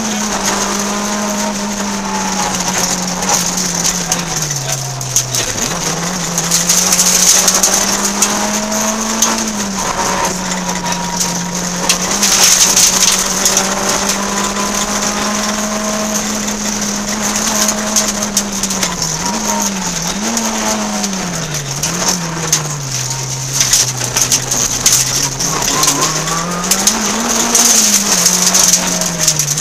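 Peugeot 106 N2 rally car's four-cylinder engine, heard from inside the cabin, pulling hard at high revs. Its pitch drops and climbs again several times as the driver lifts and changes gear, with a quick run of swings about two-thirds of the way through. A steady hiss of road and tyre noise runs under it.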